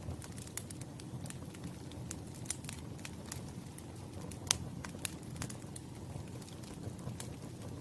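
Wood campfire crackling: irregular sharp pops and snaps over a low steady rumble of the burning fire, with one pop louder than the rest about four and a half seconds in.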